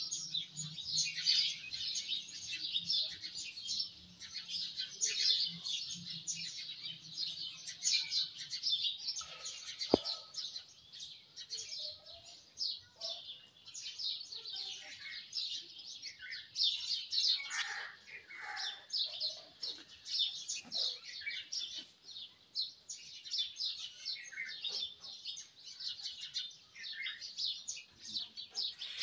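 Small birds chirping constantly, many short overlapping chirps, with one sharp click about ten seconds in.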